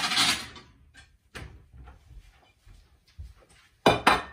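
Kitchen crockery being fetched: a burst of rummaging and cupboard noise at the start, then a couple of sharp clacks near the end as a ceramic plate is set down on the worktop.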